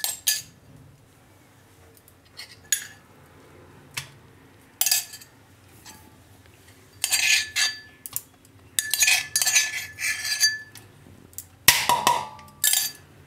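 Metal spoon scraping and clinking against a stainless steel bowl in scattered separate strokes as crushed garlic is scraped into it, the bowl ringing briefly after some of the hits.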